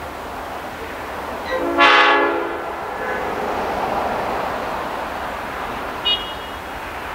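Diesel locomotive horn sounded once for about a second, a chord of several tones, about two seconds in, over the growing rumble of the approaching train. A brief, higher-pitched toot follows near the end.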